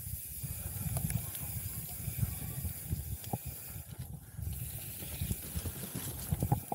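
Mountain bike descending a dirt singletrack, heard as heavy wind buffeting on the microphone with a steady hiss, plus the rattle of the bike and a few sharp knocks as it hits bumps.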